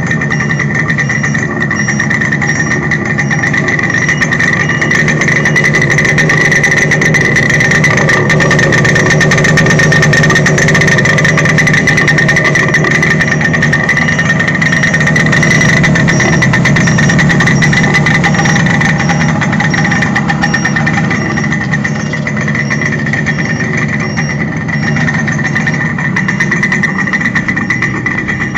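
Suzuki X7 motorcycle's two-stroke twin engine idling steadily, a little louder through the middle.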